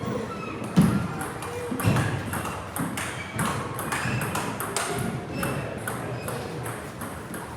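Table tennis balls clicking off paddles and the table in a quick, irregular run of sharp ticks, the loudest about a second in.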